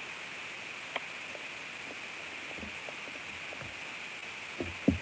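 Steady hiss with faint mouth sounds of someone eating cake from a spoon: a small click about a second in and two short, louder low sounds near the end.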